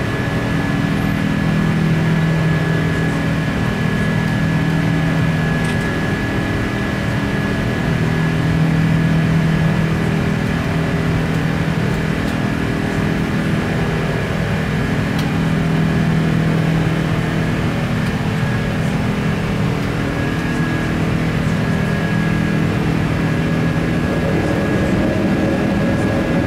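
Cabin noise inside an Airbus A380-800: a steady drone from its four Rolls-Royce Trent 900 engines and the air conditioning. A low hum swells and fades every few seconds, with a thin steady high whine above it.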